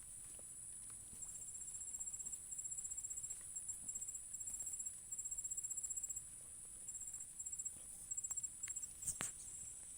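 Insects calling: a steady high buzz with trains of fast, high chirping pulses that start and stop, plus a few faint clicks and one sharper click about nine seconds in.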